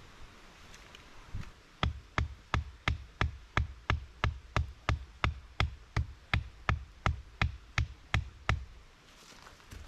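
A steady run of about twenty hard knocks, roughly three a second, each with a deep thump. They start about two seconds in and stop near the end: something being struck repeatedly.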